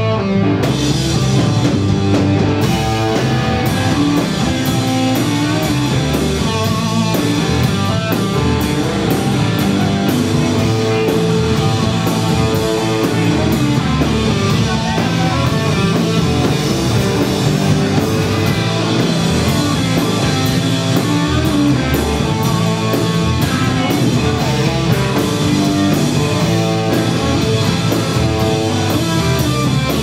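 Rock band playing loud and live: electric guitars over a drum kit, with the cymbals struck in a steady fast pattern.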